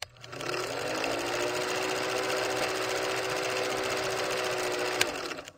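A small motor-driven machine whirring with a fast, even rattle. It spins up in the first half second, gives a sharp click about five seconds in, and stops abruptly.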